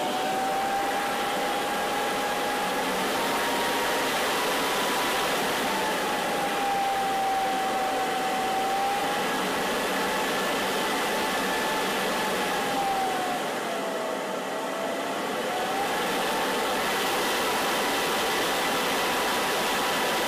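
A 1-horsepower centrifugal blower motor (8 amp, 1000 W) running through a router speed controller, a steady rush of air with a motor whine that rises and falls as the speed knob is turned. It dips lowest and slightly quieter a little past the middle, then climbs back. The controller only slows it near the top of its range, and the motor makes somewhat of a funny noise on it.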